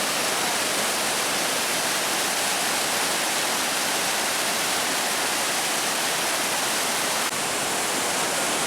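Raging whitewater of the Merced River in record spring snowmelt flow: a steady, dense rush of water.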